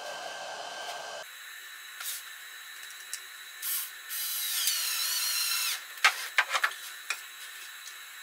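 A power drill runs for about a second and a half, its pitch sagging and then recovering. It is followed by several sharp knocks and clicks of wooden parts being handled.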